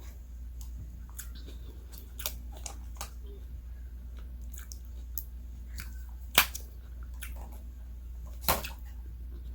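Close-up eating sounds: a person chewing with scattered wet mouth clicks and smacks, and two louder sharp clicks about six and a half and eight and a half seconds in.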